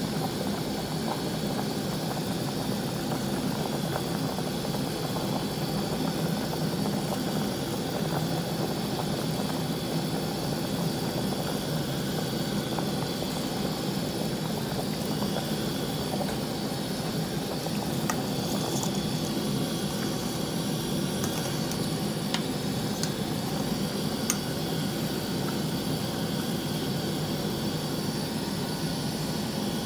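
Pot of beef and pork sinigang broth at a rolling boil, bubbling steadily, with a few faint clicks in the second half.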